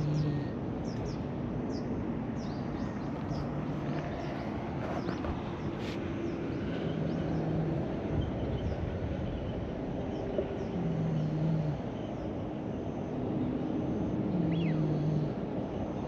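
Orange-and-white cat snoring in its sleep: a short, low, buzzing snore about every three and a half to four seconds, each lasting about a second. Small birds chirp faintly behind it.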